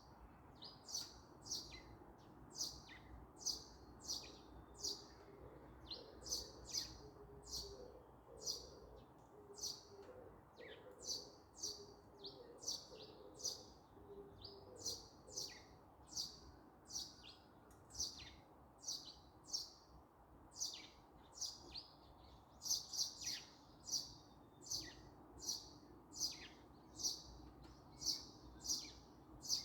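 A small songbird chirping over and over, short high chirps at about two a second.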